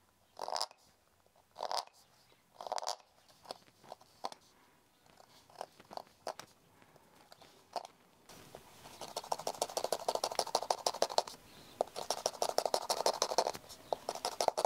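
A hand carving tool scraping and cutting into the hard shell of a dried jícara (calabash gourd). It makes separate strokes about once a second, then from about eight seconds in a quick run of short, close-set scratches as the design is engraved.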